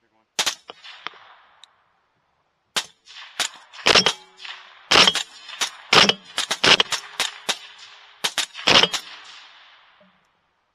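Rapid rifle fire at hogs: about twenty sharp shots, each trailing a short echo. A few shots come at the start, then a dense string runs from about three seconds to nine, some shots less than a quarter second apart.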